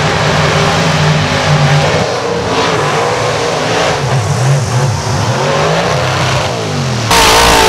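Mud bog trucks' big engines revving hard through deep mud, the engine note rising and falling over a dense noise. A short, much louder burst of noise comes in near the end.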